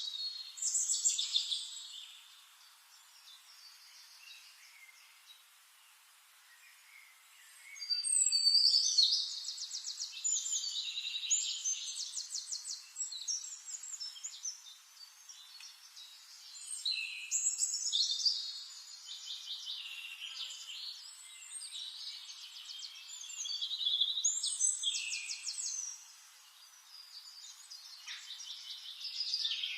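Songbird singing in bursts of fast trills and warbling notes, a new phrase every few seconds with short pauses between, and a quieter stretch early on before the singing picks up again about eight seconds in.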